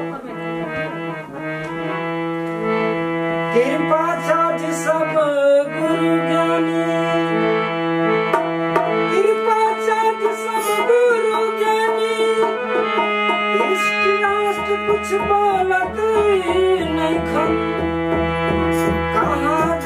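Opening of a Hindi devotional bhajan: a harmonium plays held chords and a melody, with a man's voice singing long drawn-out lines over it. A dholak's low beat comes in about two-thirds of the way through, and kartal clappers jingle lightly.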